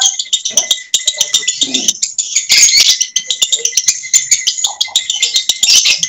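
Lovebirds singing a rapid, nonstop chattering trill full of sharp clicks, the long run of song that lovebirds are scored on in a contest's konslet class. It dips briefly about two seconds in, then carries on.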